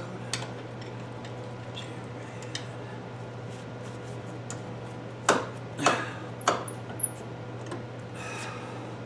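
Metal tools clinking and clattering, four sharp knocks with a high ring about five to seven seconds in, over a steady low hum.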